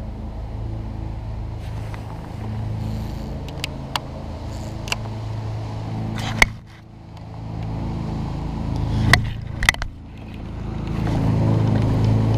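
A steady low engine hum that fades about halfway through and swells again near the end, with a few sharp clicks and taps over it.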